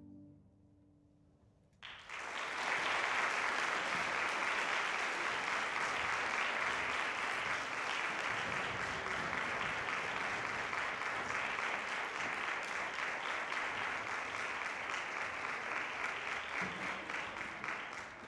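Audience applause after an orchestra performance. It starts abruptly about two seconds in, following a brief hush as the last note dies away, then runs steadily and thins out near the end.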